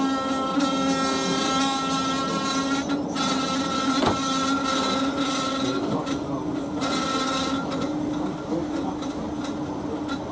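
A steam-hauled train heard from a carriage window while it runs. A long, steady whistling tone lasts throughout, with a single sharp knock about four seconds in.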